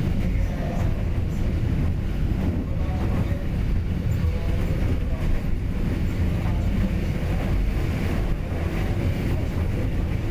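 Train running along the railway track with a steady low rumble.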